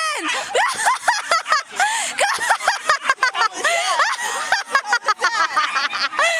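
Crowd of onlookers shouting, cheering and laughing, many high-pitched voices at once with no single clear speaker.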